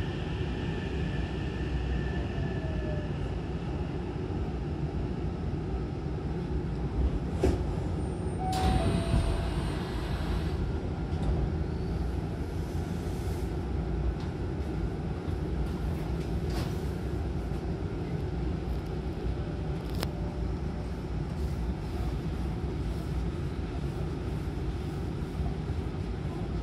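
Hankyu train's passenger doors opening at a station stop: a sharp click, then a rush of noise lasting about two seconds as the doors slide open. Under it, the steady low rumble of the train standing at the platform.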